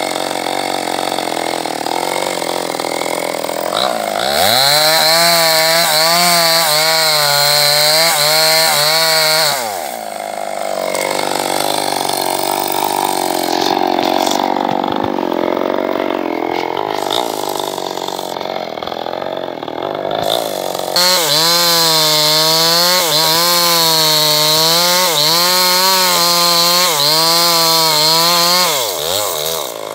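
Two-stroke chainsaw idling, then run at full throttle about four seconds in, its pitch wavering as the chain cuts into a log. It drops back to idle at about ten seconds, idles for about ten seconds, then revs up and cuts again until just before the end.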